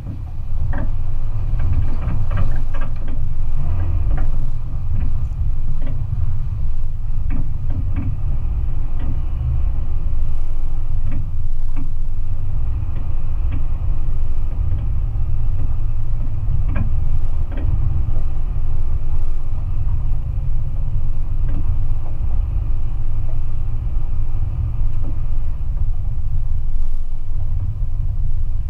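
Vehicle driving slowly over a rough dirt and gravel road: a steady low rumble of engine and tyres, with scattered knocks and rattles as the wheels go over rocks and ruts.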